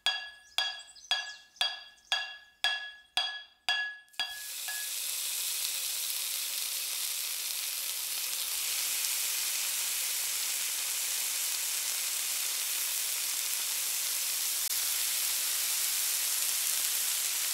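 A metal pot struck about two times a second, each strike ringing briefly, the 'xim, xim' of a child banging pots; about four seconds in this gives way to the steady sizzle of food frying on the stove.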